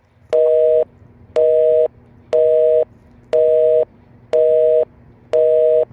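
Telephone busy signal: a steady two-note tone beeping once a second, half a second on and half a second off, six times.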